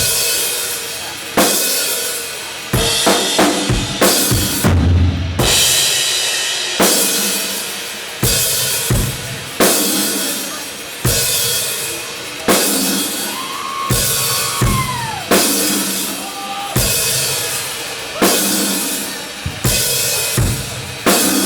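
A doom metal band playing live at slow tempo: heavy drum kit hits with a crash cymbal about every second and a half, each ringing out under a thick, sustained band sound.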